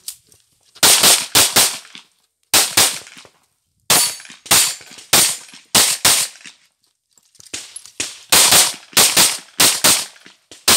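Pistol shots fired in quick pairs during a timed practical shooting stage: close double shots in groups, separated by short pauses while the shooter moves between positions. There is a gap of about a second a little past the middle, then more rapid pairs of shots.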